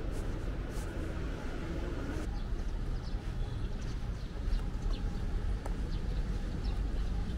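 Outdoor city background: a steady low rumble under a faint hiss, with short high chirps coming and going from about two seconds in.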